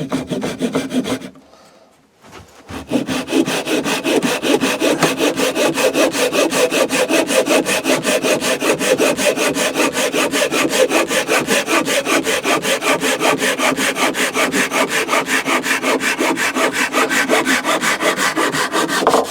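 Japanese pull saw cutting through a wooden stool-leg blank in quick, even strokes. A brief stroke or two start it, then after a short pause the sawing runs on steadily.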